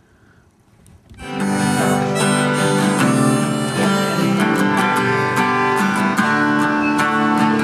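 Music starts about a second in: harmonica over strummed acoustic guitar, playing steadily.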